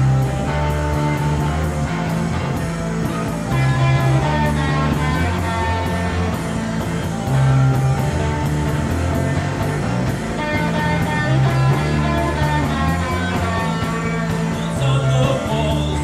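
A rock band playing live, with guitar over a heavy low end and evenly spaced cymbal ticks, at the start of a song.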